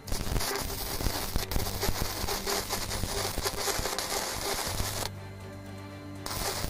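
Stick-welding arc from an ESAB Xpert Weld 200 single-phase inverter welder at full current, crackling as the electrode burns a hole through 8 mm steel plate. The arc stops about five seconds in and strikes again about a second later. Background music plays underneath.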